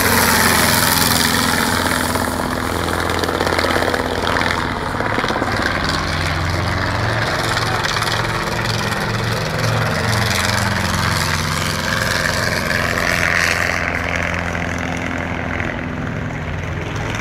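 Light two-seat helicopter flying low overhead, its engine and rotor droning steadily, with a pulsing beat about halfway through. The sound thins out near the end as it banks up and away.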